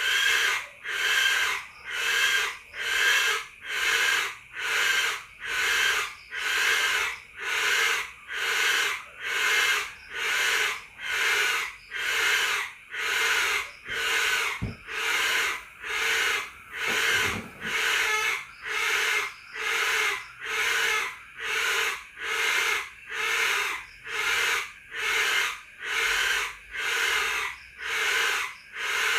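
A night animal's call repeating in a steady rhythm, about one pulse a second, each pulse a hissing, rasping burst.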